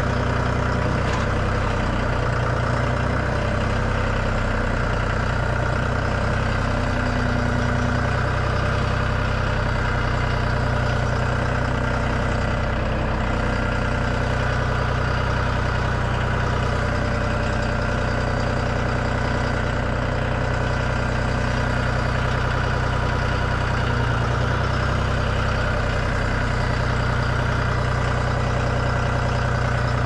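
John Deere compact tractor's diesel engine running steadily at an even speed, heard from the driver's seat.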